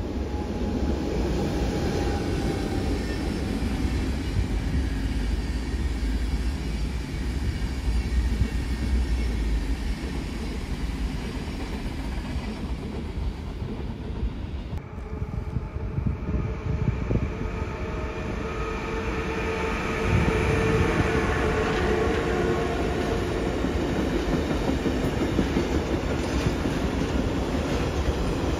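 Electric trains rolling past at close range with a steady rumble of wheels on rail: first a red SBB Re 460 electric locomotive hauling coaches, then, after a cut about halfway through, a long freight train of tank containers.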